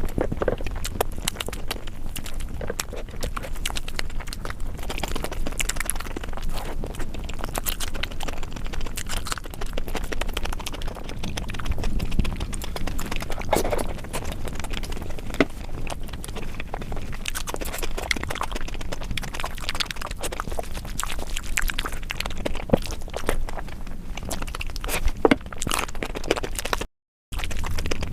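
Close-miked eating of spicy egg curry: wet chewing and mouth sounds, a dense run of small clicks and smacks. The sound cuts out completely for a moment near the end.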